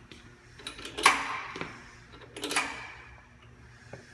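Metal clicks and knocks of bolts and tools being handled on a concrete grinder's drivetrain housing, with two louder clanks that ring briefly, about a second and two and a half seconds in.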